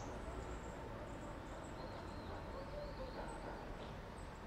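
Outdoor ambience: faint, scattered bird chirps over a steady low rumble.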